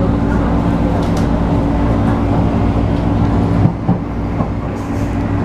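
MTR East Rail Line MLR electric multiple unit heard from inside the carriage while running at speed, with steady rail noise and a low hum. About two-thirds of the way through, the hum fades away and there is a short knock.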